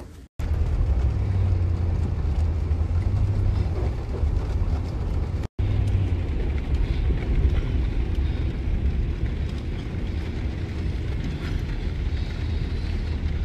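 Steady low rumble of car road and engine noise heard from inside the cabin, cutting out briefly twice.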